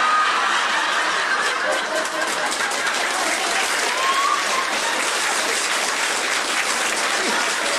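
Live audience applauding after a joke's punchline, with a little laughter mixed in; the clapping starts suddenly as the speech ends and stays steady.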